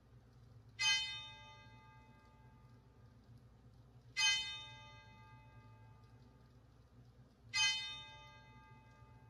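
Organ chimes: the same bell note struck three times, evenly spaced about three and a half seconds apart, each ringing out and slowly fading, tolled as a call to worship.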